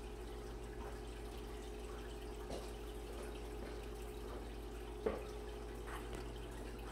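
Quiet kitchen room tone: a steady electrical hum with a few faint ticks, and a small knock about five seconds in.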